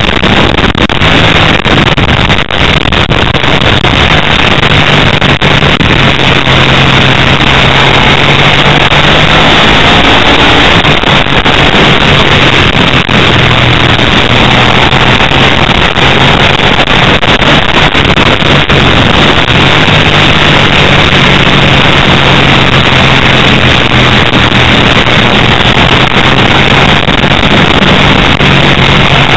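Ducati 888 racing motorcycle's 90-degree V-twin engine running hard at racing revs, recorded by an onboard camera with wind on the microphone. The engine pitch rises and falls with the throttle through the corners. The sound is very loud and saturated.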